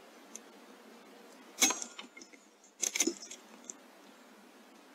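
A single sharp shot from an Airmaks Krait L .22 PCP air rifle about one and a half seconds in, then about a second later a quick cluster of metallic clicks and a knock.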